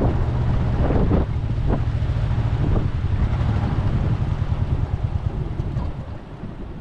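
Boat engine running with a steady low hum while wind buffets the microphone; the sound falls away near the end.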